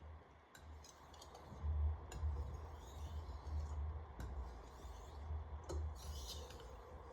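Steel chef knife blade being stroked across a 3000-grit whetstone, with a few light clicks of the blade on the stone and a short gritty scrape near the end.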